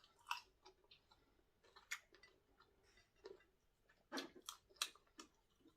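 Faint, scattered crunches and mouth clicks of someone chewing fried chicken gizzard, with a small cluster of louder crunches about four seconds in.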